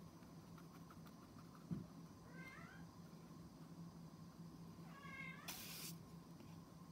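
A cat meowing faintly twice, short calls that bend in pitch, the second followed at once by a brief hiss of noise. A single low thump comes about two seconds in.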